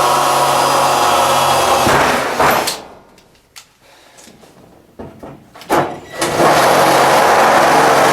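Electric drill running under load while boring a hole through corrugated tin sheeting. It stops about two seconds in, a few knocks follow, and it starts again at about six seconds.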